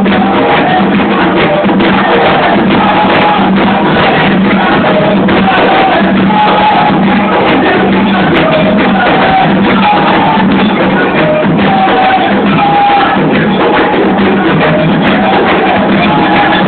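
Candomblé ritual drumming on hand drums, steady and loud, with a group of voices singing a chant over it.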